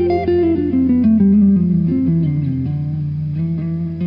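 Background music: a melody of short notes stepping downward in pitch over a steady low held tone.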